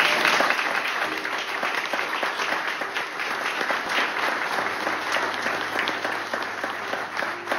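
Audience applauding, a dense patter of many hands clapping at once, greeting the unveiling of a portrait.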